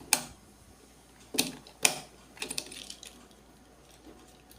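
Schneider EZASHT200AC shunt trip accessory being handled and seated into the molded-case circuit breaker: a handful of sharp plastic clicks and knocks, the loudest just after the start and about a second and a half and two seconds in.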